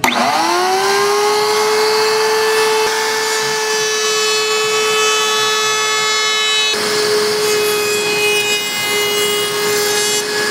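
A woodworking power tool's motor spinning up to speed within about a second, then running steadily with a high whine. About two-thirds of the way through, the sound turns noisier and rougher, as when the tool starts cutting wood.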